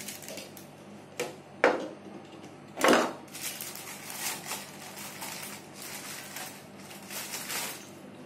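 Mixer grinder jar and lid parts being handled. There are two loud knocks about one and a half and three seconds in, then lighter clicking and clattering.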